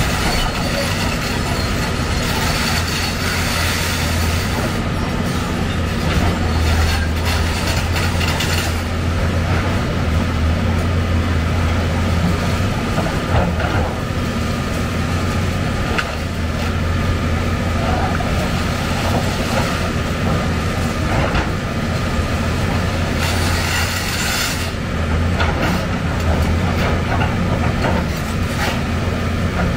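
Heavy demolition excavator's diesel engine running steadily under load, with a constant low hum. Grinding and scraping of demolition work swells several times, notably about a quarter of the way in and again near the end.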